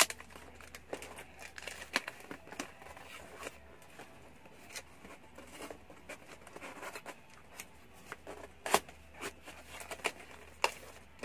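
Handling noises: soft rustling and scattered sharp clicks and taps as objects and packaging are moved about, with a louder click about nine seconds in and another near the end.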